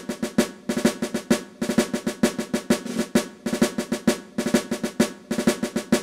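Intro music played on drums: a fast, steady snare-drum cadence of many strikes a second, with drum rolls.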